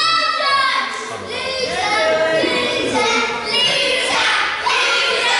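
Crowd of spectators, many of them children, chanting and shouting together in a large hall.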